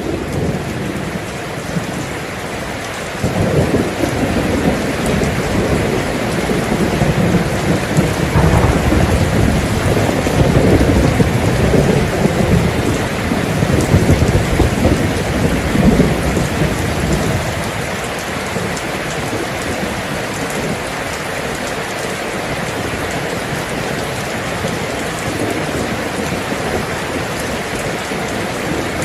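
Steady heavy rain, with a long rolling rumble of thunder that swells in about three seconds in and dies away a little after halfway, leaving the even hiss of the rain.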